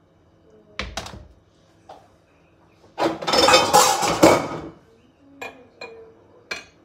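Glass jars and kitchen utensils being handled: a couple of sharp clinks, then a loud scraping clatter lasting nearly two seconds, then three lighter clinks.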